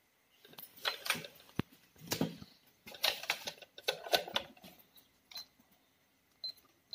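Plastic toy cash register being worked: a run of plastic clicks and taps as keys are pressed and the card payment is put through, then a few short high beeps near the end.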